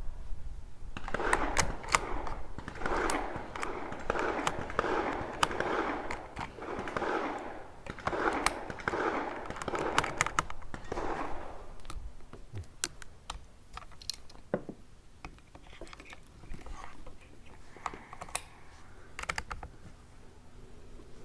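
Quick clicking and rattling of .22 LR rimfire cartridges being handled and loaded into the rifle's magazine, dense for about ten seconds and then thinning to scattered single clicks.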